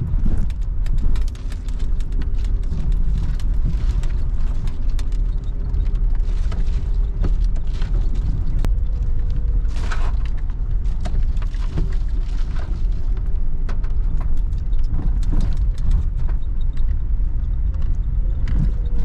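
Car driving slowly along a wet, rutted dirt track, heard from inside the cabin: steady low engine and tyre rumble with frequent knocks and rattles.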